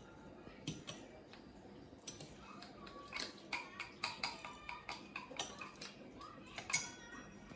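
Metal pizza roller working against aluminium foil: irregular crackling clicks with light metallic rings, sparse at first and denser from about two seconds in, the loudest click near the end.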